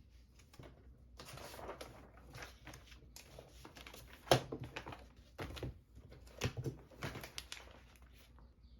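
Close handling noises: irregular rustling with small clicks and knocks, the sharpest knock about four seconds in.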